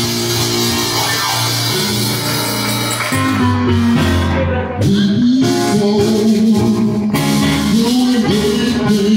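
Live gospel song: an electronic keyboard plays sustained chords, and about halfway through a man's singing voice comes in over them, sliding and wavering in pitch.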